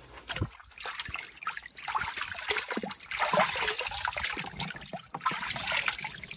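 A whole plucked and gutted chicken being swished and dunked in a tub of water, with splashing and water trickling and dripping off the bird as it is lifted.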